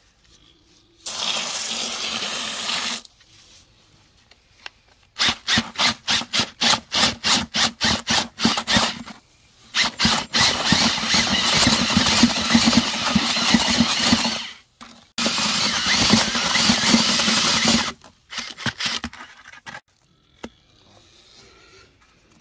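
Power drill spinning a paddle mixer through wet mortar in a plastic 5-gallon bucket. A two-second run, then the trigger pulsed in short bursts about four times a second, then two longer steady runs of several seconds each, stopping about 18 seconds in.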